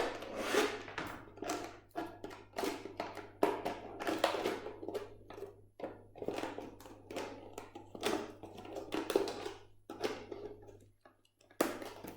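A plastic bottle being cut with scissors and handled: a string of irregular snips and plastic crinkles as a small hole is cut in its side.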